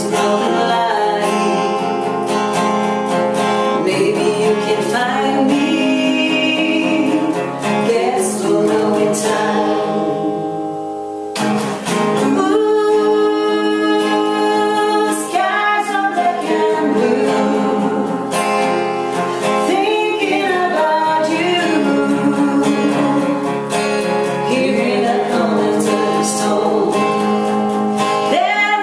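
Strummed acoustic guitar with singing, briefly dropping to a quieter lull about ten seconds in.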